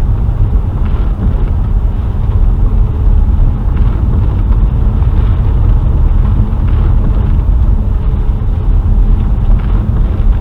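A car driving along, with a steady low rumble of engine and tyres.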